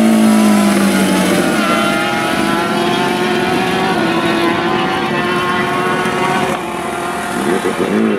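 1000cc superbike engine running at low revs as the bike rolls slowly along, its note easing down slightly at the start and then holding steady. Near the end come a few short throttle blips.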